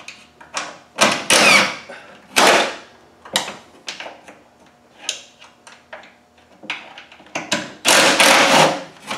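DeWalt cordless impact driver backing off screws in short bursts: three louder runs, one just after a second in, one at about two and a half seconds and a longer one near the end, with small clicks and knocks of the tool between.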